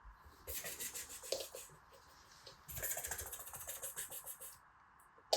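Two stretches of rubbing or wiping over a surface, the first starting about half a second in and the second just before three seconds, with a sharp tap near the end.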